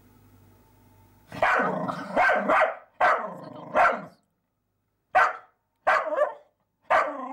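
Dog barking at a mouse hidden among rocks. About seven loud barks, starting about a second in, come in two bunches with a short pause between them.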